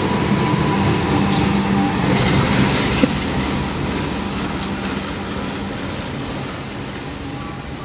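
CC 203 diesel-electric locomotive running light past at low speed, its engine running steadily with a few clicks from the track. The sound fades as it moves away.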